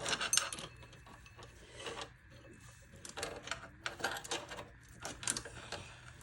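A #35 roller chain being fitted by hand onto a mini bike: metal links clicking and rattling in short irregular bursts.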